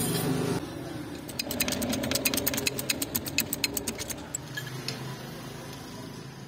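A rapid run of sharp metallic ticks, several a second for about three seconds, over a steady low mechanical hum.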